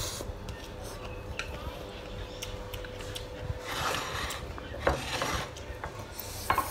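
Eating sounds: stir-fried instant noodles being slurped and chewed, with scattered light clicks of chopsticks and a spoon against a metal tray.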